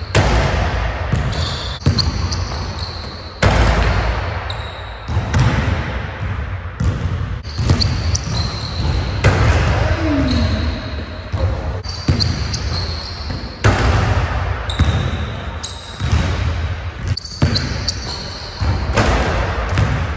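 Basketball bouncing hard on a hardwood gym floor during dunk attempts, with repeated sharp thuds of the ball, rim and landings in a large gym.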